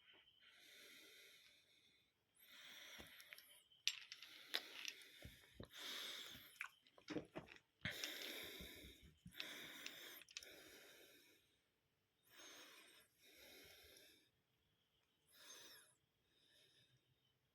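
A person's breathing, heard as a series of hissing breaths of about a second each, with a few small clicks.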